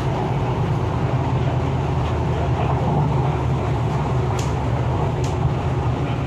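MTR East Rail line R-Train, a Hyundai Rotem electric multiple unit, running along the line: a steady rumble of wheels on rail and traction equipment. Two short sharp clicks about a second apart come a little past the middle.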